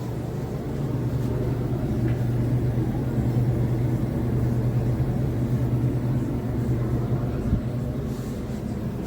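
Euhomy 850W compact portable clothes dryer running: a steady low motor hum, growing a little louder about a second in, with a single knock near the end.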